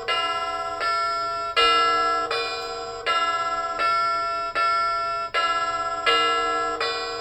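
Timex T232 alarm clock sounding one of its electronic alarm tones: a repeating chime melody of bell-like notes, a new note about every three-quarters of a second, each fading with a fast flutter.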